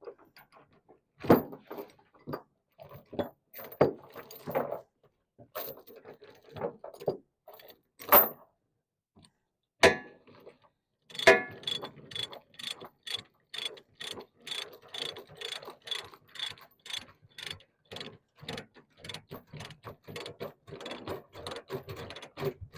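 Ratchet load binder being cranked to tighten a tie-down chain. First come some irregular clanks of chain and hardware, then, about halfway through, a steady run of ratchet clicks about two to three a second.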